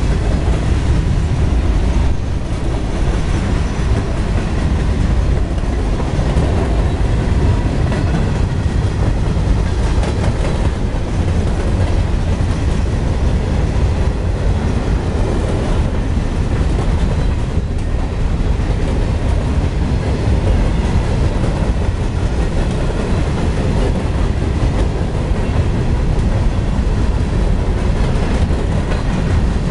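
Empty steel gondola cars of a CSX freight train rolling past close by: a loud, steady rumble of steel wheels on the rails that runs on without a break.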